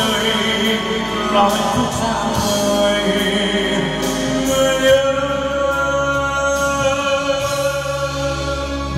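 Live karaoke: a man sings a Vietnamese ballad into a microphone over a backing track, played through a PA system driven by a Dynacord CMS 1000 mixer. A long note is held about halfway through.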